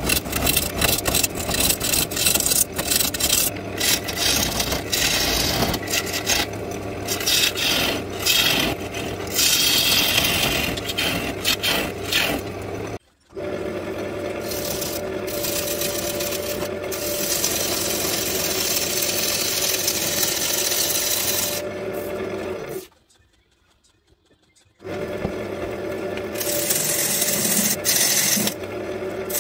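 Turning tool cutting a black walnut bowl blank spinning on a wood lathe: a loud, rough scraping and shaving of the wood, ragged at first and steadier over the lathe's hum in the middle. It breaks off briefly about 13 seconds in, and for about two seconds about 23 seconds in.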